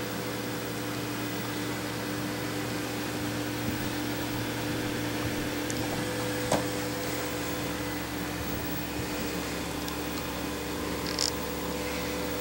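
Steady machine hum with a single sharp click about six and a half seconds in.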